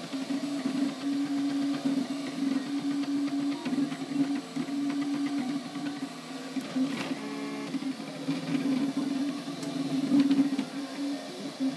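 MakerBot Replicator 3D printer's stepper motors whining at shifting pitches as the print head moves back and forth, with a quick run of clicks about seven seconds in.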